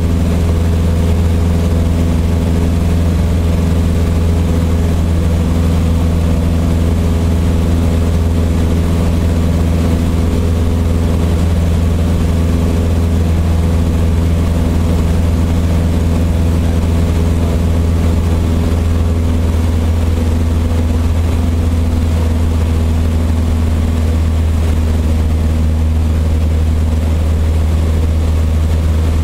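Steady drone of a light single-engine propeller airplane's engine and propeller in flight, heard inside the cabin: a loud, deep, even hum.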